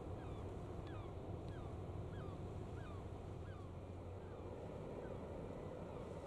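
Faint steady low rumble with wind on the microphone, over which a bird repeatedly gives short curved chirps, about two a second.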